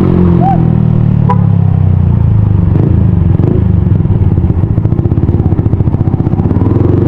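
Yamaha Sniper 155's single-cylinder engine running loud through an aftermarket TRC exhaust pipe. After about three seconds the exhaust note turns into a fast, choppy pulsing.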